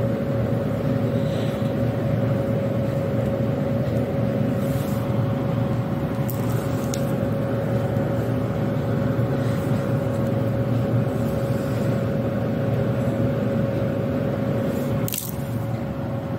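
Steady mechanical hum with a constant mid-pitched whine, like an electric motor running. There is a brief handling knock about fifteen seconds in.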